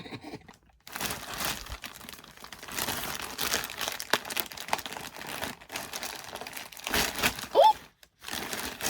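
A delivery package being torn open and its wrapping crinkled and rustled, in a long run of irregular crackles and tears. Near the end comes a short rising voice-like sound.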